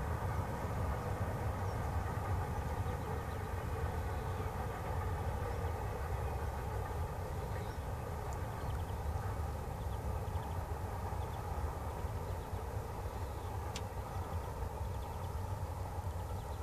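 Freight train crossing a steel trestle viaduct: a steady rumble that eases slightly toward the end as the last wagons pass over.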